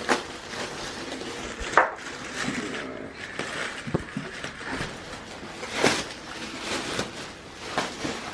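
Scattered knocks, clacks and rustles of flat-pack dining-chair parts and packaging being handled and set down, about one knock every second or two.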